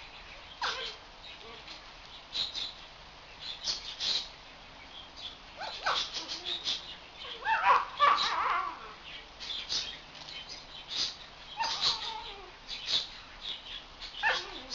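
A young puppy yipping and growling in play, with short scratchy sounds as it pounces on and tugs at a twig broom. The loudest, longest cry comes about eight seconds in.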